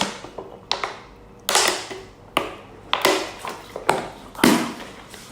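Close-up eating sounds: a series of sharp smacks and clicks, about eight in five seconds at an uneven pace, each fading quickly, as smoked chicken is chewed.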